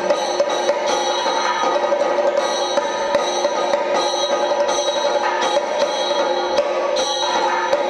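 Percussion-led music: fast, sharp drum strokes over sustained ringing tones.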